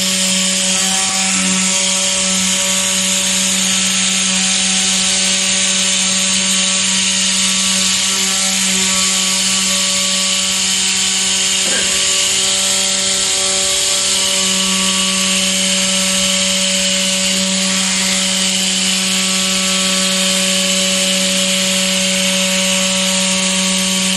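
High-speed CNC router spindle face-milling an aluminium plate. It gives a steady cutting noise with a constant tone and a bright hiss of chips, and one faint tick near the middle.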